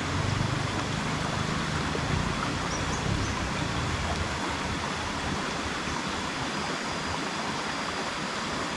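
River water flowing steadily, a continuous rushing hiss. A low rumble sits under it for the first few seconds and fades about halfway through.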